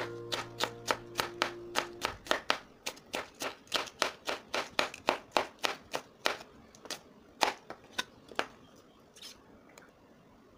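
Chef's knife chopping a red bell pepper into strips on a cutting board: a steady run of sharp taps, about three to four a second, thinning out and stopping near the end. Background music fades out in the first two seconds.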